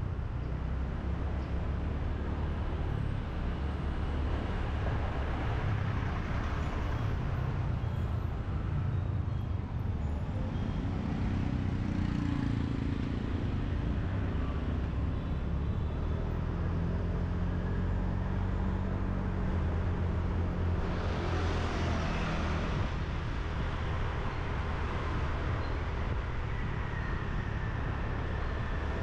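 Riding a motorbike through city traffic: steady low rumble of the bike's engine and the road, with the engine note rising and falling. A louder rush of a vehicle passing close comes about two-thirds of the way through.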